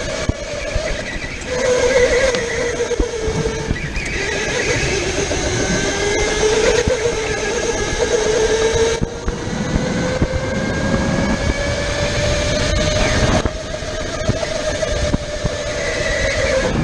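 Electric rental go-kart's motor whining under the driver, its pitch rising and falling with speed through the corners and dropping sharply about three-quarters of the way through as the kart slows.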